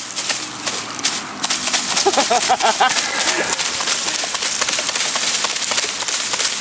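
Dry grass and reed stalks rustling and crackling in many small clicks as hands work down among them.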